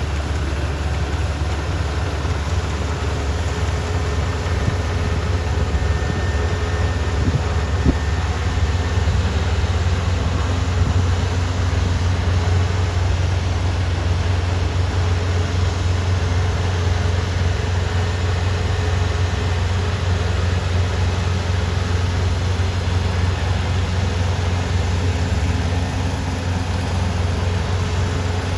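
Kubota ER470 combine harvester's diesel engine running steadily, a constant low hum with mechanical noise over it.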